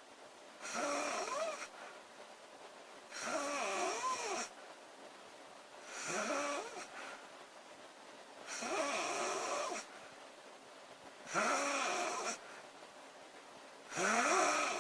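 A girl snoring loudly in a steady rhythm: six snores, one about every two and a half seconds, each about a second long and wavering in pitch, with quiet gaps between them.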